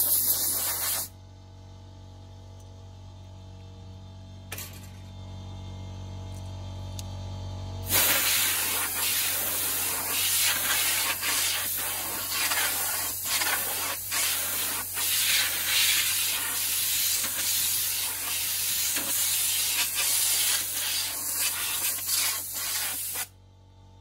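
Compressed air hissing from a hand-held air hose blowing out a PC case. There is a short blast at the start, then several seconds of a lower steady hum, then a long blast of about fifteen seconds that rises and falls as it is aimed and cuts off suddenly near the end.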